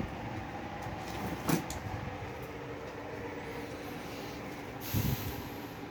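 Equipment being handled: a short sharp click about one and a half seconds in and a dull thump about five seconds in, over a steady low electrical hum.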